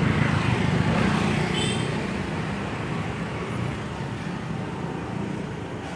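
Low, steady rumble of a motor vehicle engine nearby, slowly fading over the few seconds.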